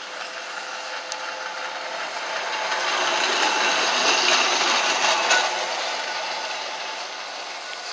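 Blackpool Balloon double-deck tram 723 passing close by on street track, the rattle of its wheels, running gear and motors swelling to a peak about four to five seconds in, then fading as it moves away.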